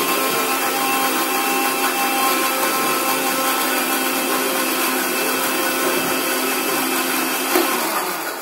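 Small electric countertop blender running steadily with a constant motor whine as it grinds papaya and aloe vera leaves. There is a short knock shortly before the motor stops near the end.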